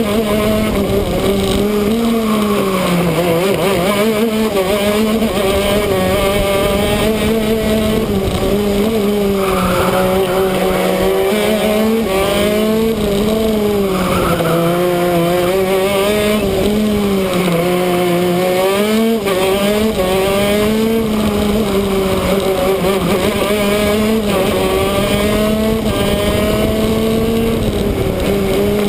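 Two-stroke shifter kart engine at racing speed, its pitch climbing and dropping again and again, about every four seconds, as it accelerates and backs off through the corners.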